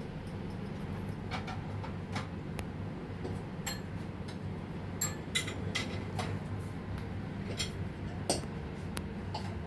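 Scattered light clicks and clinks of kitchenware, irregular and a few per second at most, the sharpest about five and eight seconds in, over a steady low hum.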